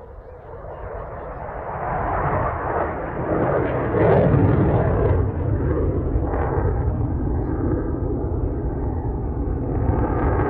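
Saab JAS 39 Gripen fighter jet flying past. The jet engine noise swells over the first few seconds, is loudest about four seconds in, and stays loud after that.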